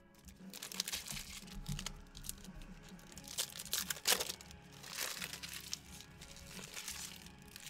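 Plastic wrapping on trading-card boxes and packs crinkling and tearing in irregular crackly bursts as they are ripped open, with music playing underneath.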